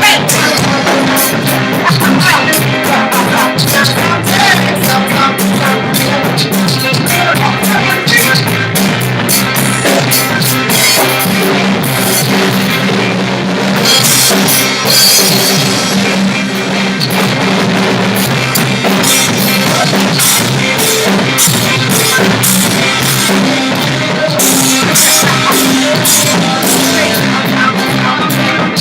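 Live band playing a loud rock-style groove, with drum kit and cymbals over a steady bass line.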